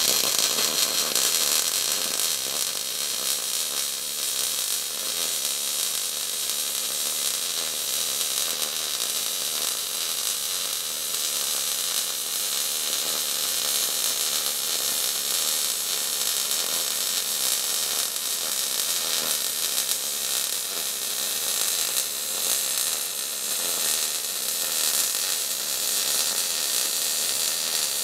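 MIG welding arc running a continuous bead on a steel wagon axle, welding the broken axle back together: a steady hiss with no break.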